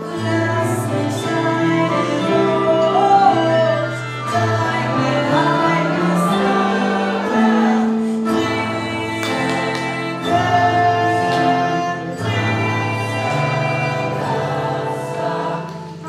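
A woman singing a slow German musical-theatre ballad, solo, over instrumental accompaniment with a steady, stepping bass line and sustained chords.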